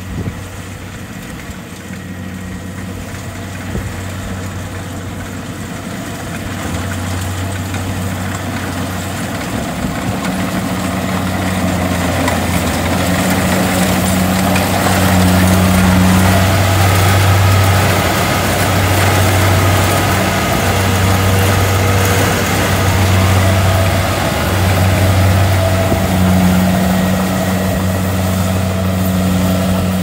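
Kubota DC70 Plus combine harvester's 70 hp diesel engine running steadily under load as it works through standing rice, with a deep engine hum and a mechanical rattle of the harvesting machinery over it. It grows louder over the first half as the machine comes close, then stays loud.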